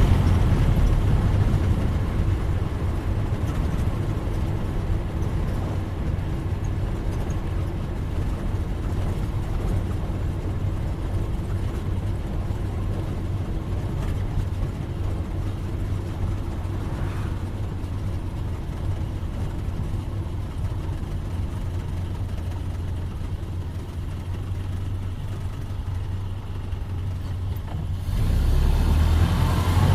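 1931 Ford Model A's four-cylinder engine running steadily as the car is driven, growing louder about two seconds before the end.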